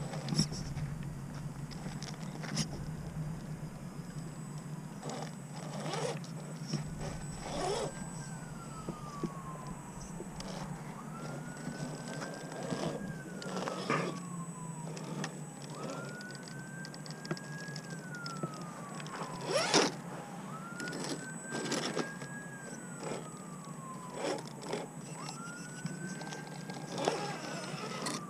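A siren wails faintly, its pitch rising quickly, holding, then falling slowly, about once every five seconds from about six seconds in. Under it come scattered knocks and scrapes from an RC rock crawler working its way up a mound.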